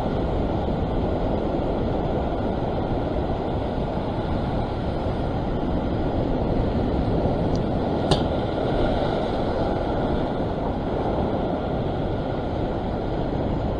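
Steady roar of ocean surf breaking on the rocks, mixed with wind buffeting the microphone. A single sharp click sounds about eight seconds in.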